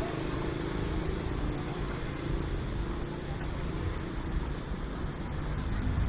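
Road traffic: vehicles running on the road, a steady low rumble with the faint drone of one engine in the first few seconds.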